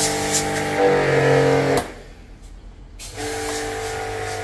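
Electric motor running with a steady, even-pitched hum that rises in pitch a little under a second in and cuts off suddenly about two seconds in. After about a second of near quiet, a different steady hum starts.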